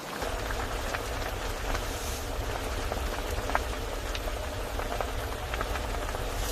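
Steady rain with scattered individual drops ticking, over a low steady rumble that comes in just after the start.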